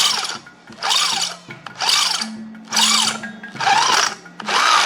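A tool cutting steel in regular strokes, about one a second. Each stroke is a rasping bite with a squeal that rises and then falls in pitch, over a steady low hum.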